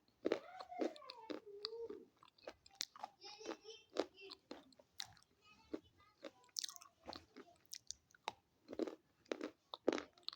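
Close-up biting and chewing of something hard and crunchy: many sharp, irregular crunches in the mouth.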